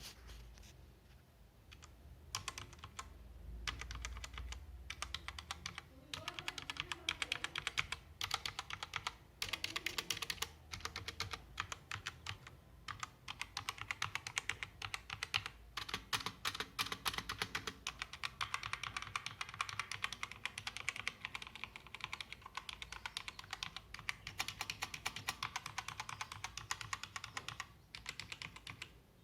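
Mechanical keyboard with red linear switches being typed on: a few scattered key clacks, then fast continuous typing from about two seconds in.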